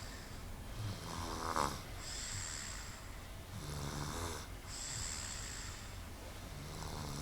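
Snoring in slow, regular breaths: three rattling snores about three seconds apart, each followed by a hissing breath out.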